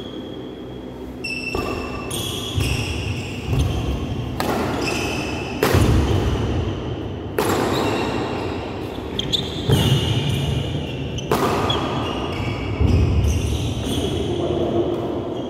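Badminton rally in a large indoor hall: rackets striking the shuttlecock in sharp cracks a second or two apart, court shoes squeaking briefly on the floor, and players' footfalls thudding, with the hall's echo behind them.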